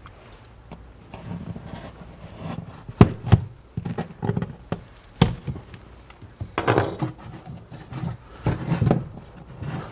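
A small square of drywall being cut out by hand: irregular scraping and rubbing of a blade through the wallboard, with a few sharp knocks and cracks in the middle as the piece is worked loose.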